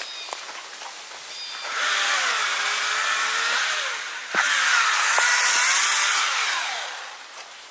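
Small engine revving hard in two long bursts of about two seconds each, its pitch rising and falling, with a brief drop between them.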